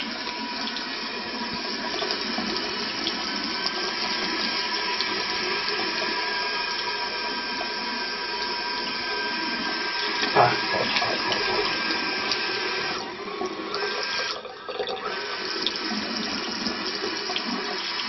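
Tap water running steadily from an LED faucet aerator into a washbasin. There is a short splash about ten seconds in, and the sound dips briefly twice a few seconds later.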